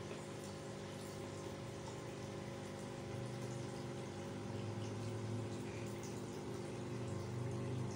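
Aquarium pump running with a steady hum while water bubbles and trickles in the tank; the hum grows a little louder about three seconds in.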